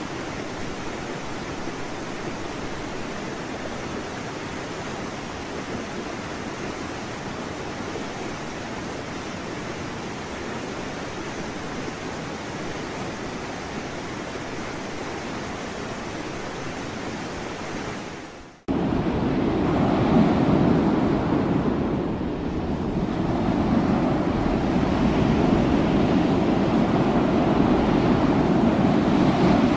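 A steady, even hiss, then after a sudden cut about two-thirds through, louder waves breaking against a rusted shipwreck, with wind buffeting the microphone.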